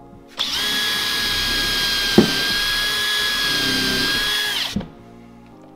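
Makita 18V cordless drill spinning a countersink bit into 3/4-inch birch plywood for about four seconds, a steady high whine, with one sharp click a little after two seconds in. It is boring a countersunk pilot hole so the screw will not split the plywood.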